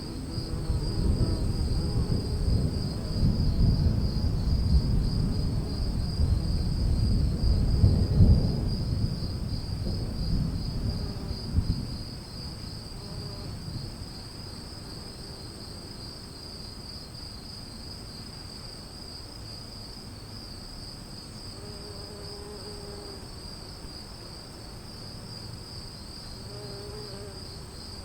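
Thunder rumbling through the first twelve seconds or so, loudest about eight seconds in, then dying away. Under it runs a steady high, pulsing trill of insects.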